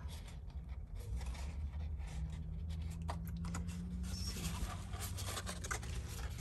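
Fingers rubbing and handling a cardstock box while its glued tabs are pressed together. The paper makes light, irregular scratching and rustling that gets busier in the second half, over a low steady hum.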